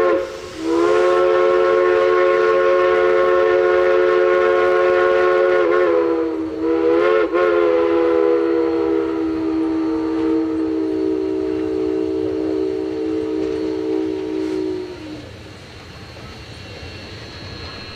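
K-28 steam locomotive's chime whistle: a very short toot, then one long blast of several tones sounding together. The blast wavers about halfway through, then sags in pitch and cuts off about three seconds before the end, leaving quieter train noise.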